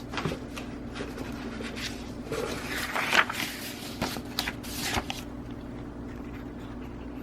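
Scattered clicks and scraping handling noises, busiest in the middle, over a steady low electrical hum.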